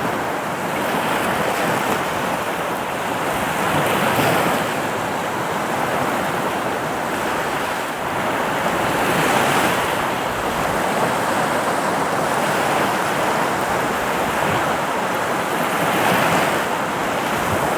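Sea of Japan surf breaking and washing up a sandy beach at the water's edge: a steady rush of water that swells with each wave about every five to seven seconds.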